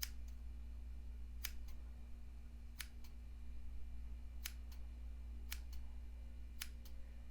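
Small scissors snipping eyebrow hairs: about six crisp snips, roughly one a second, over a steady low hum.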